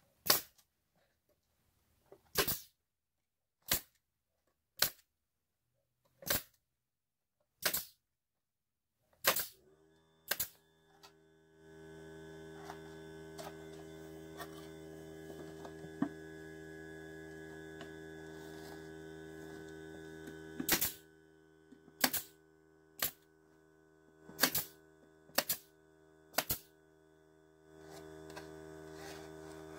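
Pneumatic nailer firing nails into the wooden birdhouse box: sharp single shots, eight in the first ten seconds and six more later. About ten seconds in, a motor starts up and runs with a steady hum.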